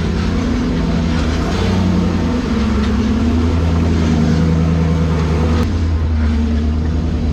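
Engine of a built Jeep TJ rock crawler running at low revs as it crawls up a rocky trail, its pitch rising and falling with the throttle. The sound changes abruptly about five and a half seconds in.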